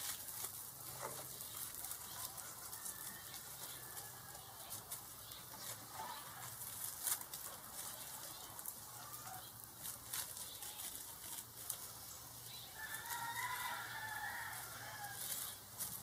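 Potting soil and fine roots crackling and rustling as hands pull dirt off a desert rose's root ball, in scattered small ticks. A bird calls in the background for about three seconds near the end.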